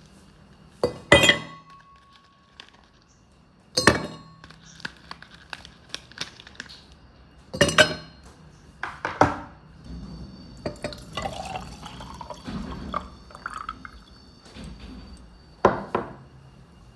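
Several sharp clinks and knocks of hard kitchenware, and past the middle a few seconds of liquid being poured into a container, its pitch rising as it fills.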